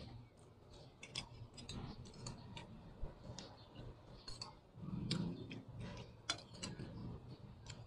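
Close-up eating sounds: chewing and lip-smacking, an irregular scatter of sharp wet clicks, with a short low mouth murmur about five seconds in.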